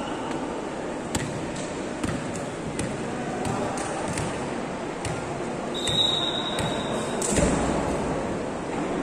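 Volleyball bouncing on an indoor court floor, a series of sharp knocks several about half a second apart, over a steady murmur in a large hall. A brief high tone sounds about six seconds in, and a heavier thud follows about a second later.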